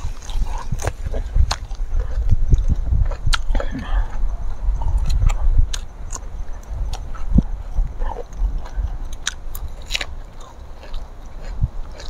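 Wind buffeting the microphone, a heavy low rumble that comes up sharply at the start, with many sharp crunching clicks of biting and chewing.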